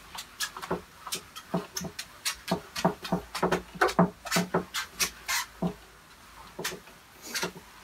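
Handheld whiteboard eraser rubbing across a whiteboard in quick back-and-forth strokes, about three a second, with a short pause near the end.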